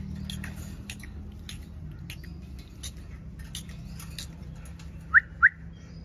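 Rose-ringed parakeet giving two short, sharp rising whistles about a quarter second apart near the end, over scattered light ticks and a steady low hum.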